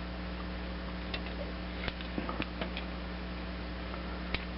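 Faint, light clicks and ticks of a torch tip cleaner's wires being handled and worked into a carburetor's main jet orifice, scattered a few times over a steady low hum.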